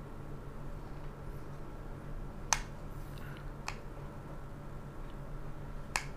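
Hard plastic clicks as a black clip bracket is fitted onto a Cateye rear bike light: three sharp clicks, the loudest about two and a half seconds in, another about a second later and one near the end, over a steady low hum.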